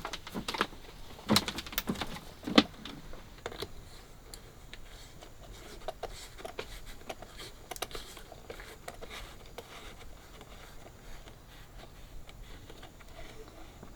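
Knocks and clicks of hardware being handled while a camera is mounted: several sharp knocks in the first three seconds, then light scattered ticks and clicks.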